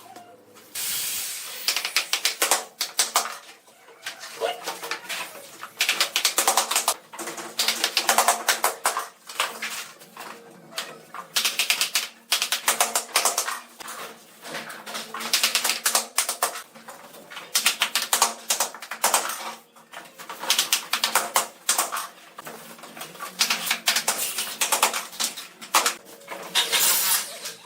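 Rapid, irregular clicking and tapping in bursts about a second long, repeating throughout with short pauses between.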